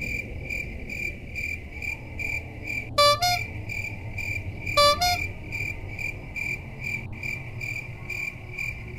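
Crickets chirping steadily, about two and a half chirps a second. Two short horn-like honks about three and five seconds in.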